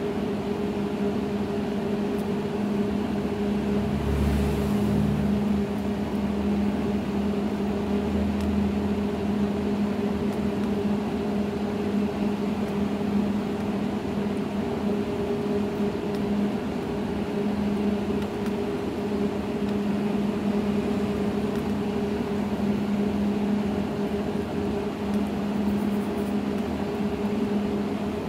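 Steady electrical hum with a higher buzz over a faint hiss, with a brief low bump about four seconds in.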